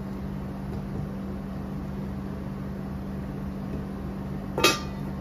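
Steady low hum, then about four and a half seconds in a single metallic clank as a stainless steel lid is set down on a cooking pan.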